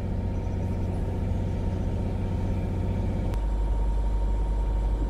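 Sailboat's outboard motor running steadily under way, a low drone. About three seconds in there is a click and the drone shifts to a lower note.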